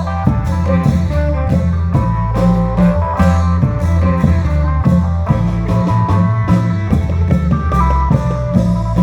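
Isan klong yao long-drum troupe playing music: a melody over a heavy bass line, with regular drum strokes.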